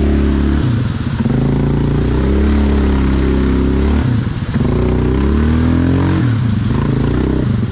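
Off-road vehicle engine revving hard under load in mud, its pitch dropping and climbing back three times as the throttle is eased and opened again.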